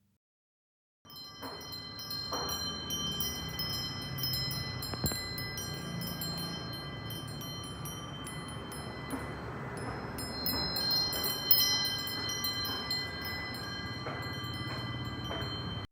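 Brass wind chime tinkling: many metal rods struck in quick irregular succession, their high ringing tones overlapping, over a low background rumble. It starts about a second in and cuts off suddenly near the end.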